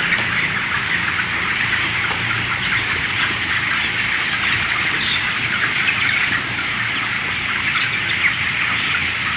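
A large flock of broiler chickens chirping and peeping in a steady din of many overlapping calls.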